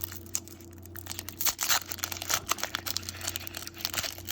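Crinkling and rustling of a trading-card pack wrapper and cards being handled, with a run of quick crackles starting about a second and a half in. A steady low hum runs underneath.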